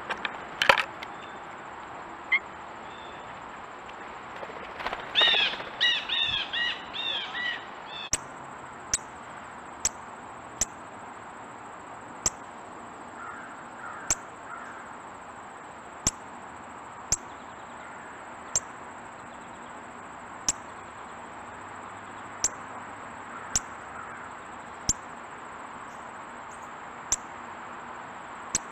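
A quick run of about eight harsh corvid calls some five seconds in. Sharp single taps follow about once a second: beaks striking seed on the wooden stump. A faint steady high tone runs underneath.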